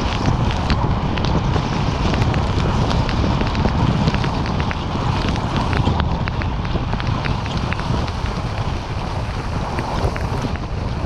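Wind buffeting the camera microphone in a snowstorm: a loud, steady, deep rush of noise with scattered faint ticks through it.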